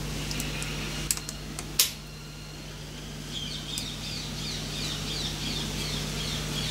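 Small machined metal parts clicking against each other as they are fitted together by hand, the loudest click just under two seconds in, over a steady low hum. From about halfway, a bird calls in a quick run of repeated chirps.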